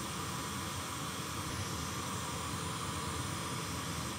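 Steady hissing noise played through studio speakers and picked up by a Shure SM7B microphone, switched from the plain recording to one with a FetHead inline preamp in the chain. The noise stays at the same level across the switch: the inline preamp does not reduce ambient noise.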